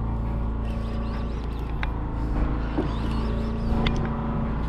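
Fishing boat's engine running with a steady low hum, with a few short, sharp clicks on top.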